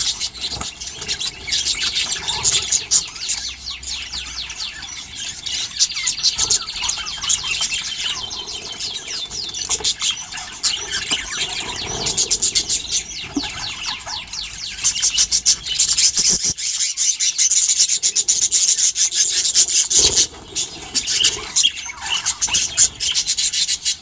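A flock of budgerigars chattering and warbling: a dense, unbroken stream of rapid high chirps from many birds at once.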